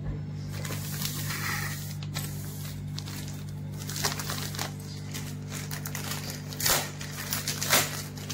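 Clear plastic bread-loaf wrapper crinkling as it is handled and opened, in several crackly bursts, over a steady low hum.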